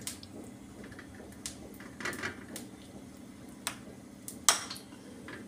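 Scattered light clicks and taps of a plastic spoon against the filling bowl and a steel plate as filling is scooped and spread on bread, the sharpest tap near the end, over a low steady hum.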